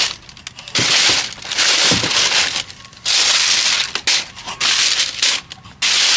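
Packaging crinkling and rustling as it is handled, in about four loud bursts of a second or so each.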